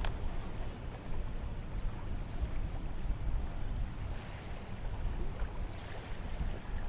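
Strong wind buffeting the microphone as an uneven low rumble, with a steady wash of wind and water noise over it and a single sharp click at the start.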